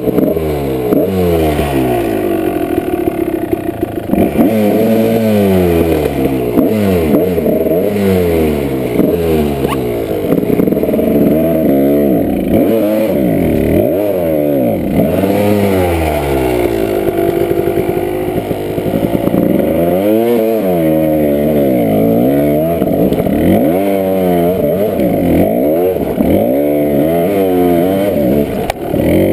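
Kawasaki dirt bike engine revving up and down over and over under load, each rise and fall of pitch lasting about a second or two, as the throttle is worked on a rocky climb.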